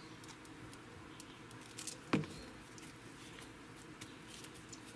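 Faint light tapping and rustling as dry French onion soup mix is shaken from a jar onto a seared chuck roast and patted in with a gloved hand. There is one sharp knock about two seconds in.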